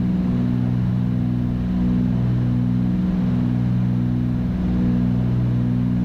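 Twin-engine Cessna 310's piston engines and propellers droning steadily at climb power, heard inside the cabin. There is a slight slow wobble in the drone about every second and a half.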